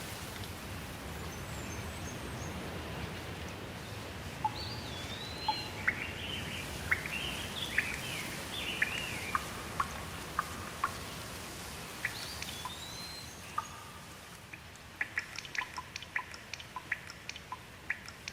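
Steady rain hiss with birds calling over it in short whistled and chirping phrases. About three-quarters of the way through the rain eases and separate drops tick in quick succession.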